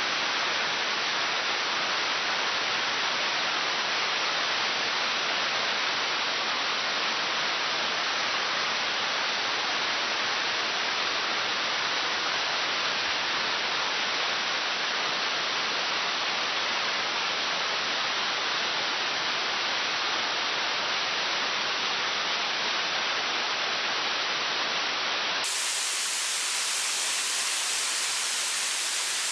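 Waterfall: a steady rushing of falling water, its tone changing abruptly near the end.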